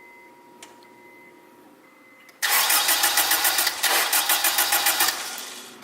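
Turbocharged Acura RSX engine being cranked on the starter for about three seconds, in quick rhythmic pulses, starting about two and a half seconds in, without catching: a failed start, which the owner puts down to the spark plugs.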